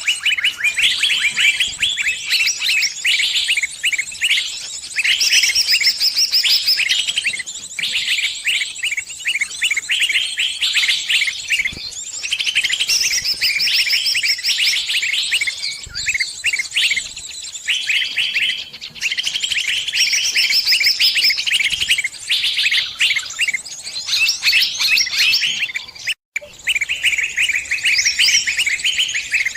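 Sunbirds chirping and trilling without a break, rapid high twittering phrases following one after another. The sound cuts out completely for a moment about 26 seconds in.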